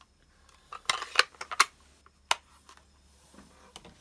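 Small hard craft supplies being handled and put away: a quick cluster of clicks and clacks about a second in, then one sharp click a little after two seconds.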